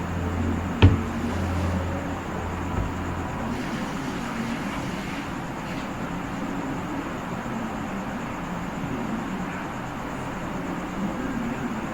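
Steady background noise with a low hum that stops about three and a half seconds in, and one sharp click about a second in.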